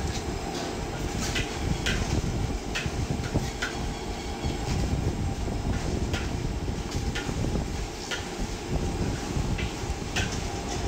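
High-output gas wok burner running under a wok during stir-frying, with irregular metal knocks and scrapes of the wok spatula against the wok about once a second.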